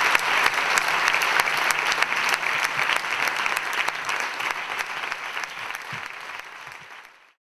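Audience applauding: a dense clatter of many hands clapping that slowly fades over the last few seconds and then cuts off abruptly.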